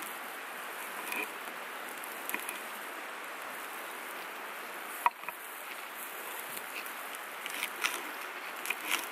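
Kitchen knife slicing cucumber and lettuce on a wooden cutting board: scattered sharp taps, one louder about halfway through and several close together near the end, over a steady rushing of creek water.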